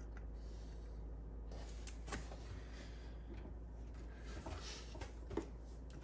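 Faint handling noises, small clicks and rubbing, as wires and a soldering iron are worked on a small circuit board during desoldering, over a steady low hum.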